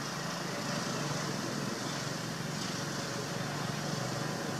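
Steady outdoor background noise with a low hum and an even hiss, no distinct events.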